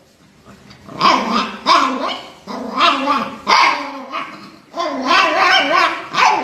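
A dog barking repeatedly, a run of short calls starting about a second in.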